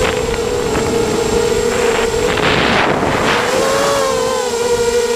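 Hexacopter's electric motors and propellers whining steadily in flight, the pitch wavering slightly. Rushes of air hit the onboard microphone about two to three seconds in.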